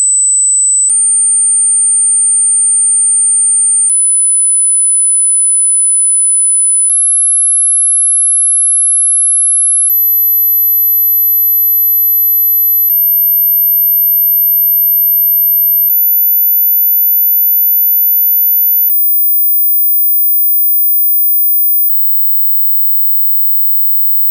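Electronic pure-tone hearing-test tones, very high and steady, each held about three seconds before jumping higher, eight steps in turn, then cutting off near the end. They climb through the high range that ageing ears lose, so each listener stops hearing them at some step.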